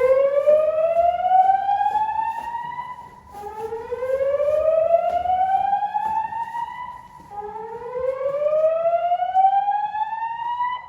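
Voice-evacuation fire alarm sounding its slow whoop evacuation tone: three rising sweeps, each climbing for about four seconds before dropping back and starting again.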